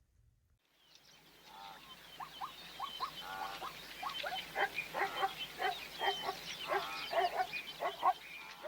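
A chorus of many short animal calls, quick chirps with thinner whistled notes above them, fading in just after the start and growing busier.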